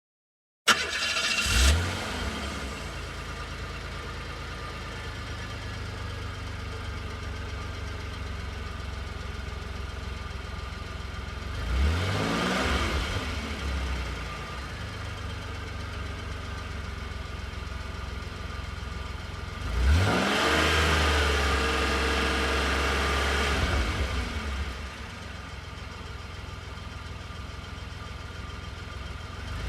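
Car engine starting abruptly and settling into a steady idle, then revved several times: a short blip at the start, another about twelve seconds in, a longer rev about twenty seconds in that is held for a few seconds before falling back to idle, and one more rev beginning at the end.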